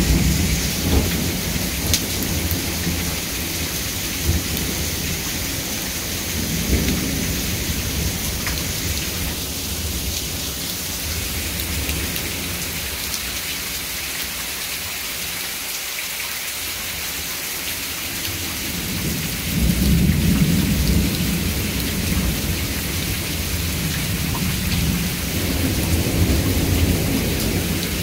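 Heavy rain falling steadily with rolling thunder: a low rumble at the start that dies away, and another that swells about twenty seconds in.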